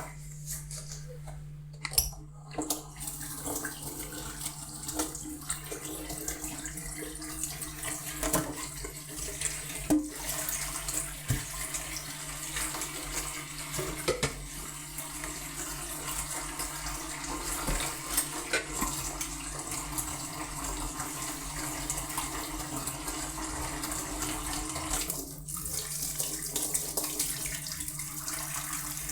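Tap water running into a kitchen sink while dishes are hand-washed, with dishes knocking and clinking now and then. The water drops off briefly about 25 seconds in, over a steady low hum.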